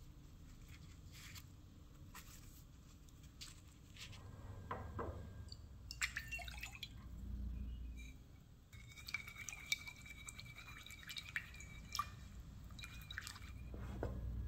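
Water poured into a ceramic mixing bowl, then salt tipped in from a small glass, with light clinks and ticks of glass against the bowl.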